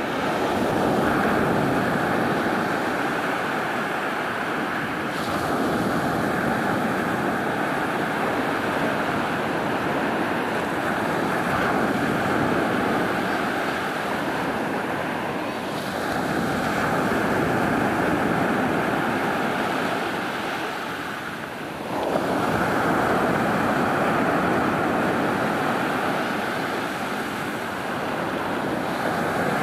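Small sea waves breaking close to shore and washing up a pebble beach, a continuous surf wash that swells and eases every few seconds.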